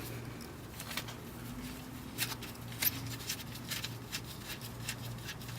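Faint clicks and small scrapes of an engine oil drain plug being turned out by hand, over a steady low hum.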